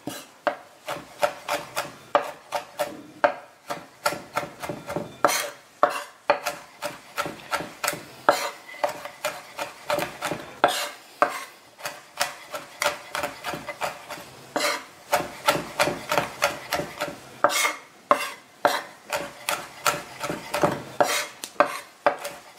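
Chef's knife rock-chopping fresh herbs fine on a wooden cutting board: a steady run of blade knocks on the wood, about three a second.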